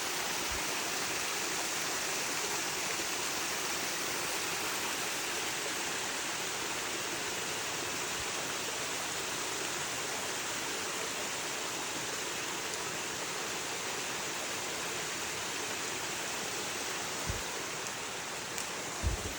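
Waterfall running low on water: a steady, even rush of falling water, with a couple of soft low thumps near the end.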